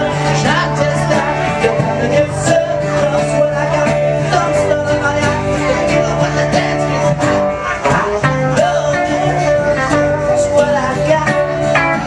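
A band playing country-bluegrass music, guitar to the fore, with a voice singing over a steady beat.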